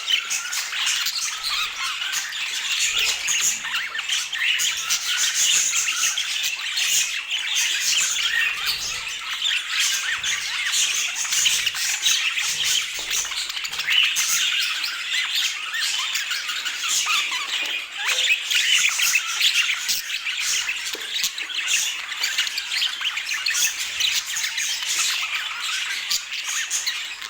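Pet budgerigars chattering and squawking without a break, a dense mix of high chirps and calls.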